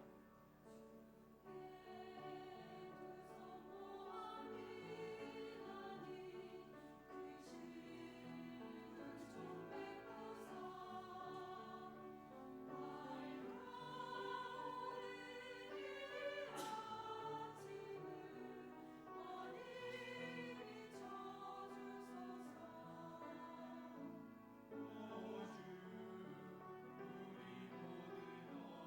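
A group of voices singing a slow hymn over an instrumental accompaniment, with vibrato on the held notes.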